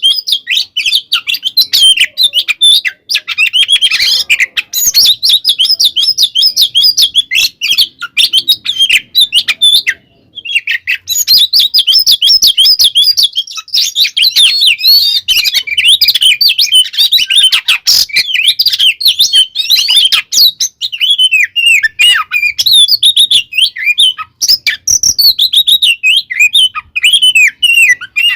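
Oriental magpie-robin (kacer) singing non-stop in an agitated, fighting-style song: a rapid, ever-changing stream of chirps and whistles, with a brief pause about ten seconds in.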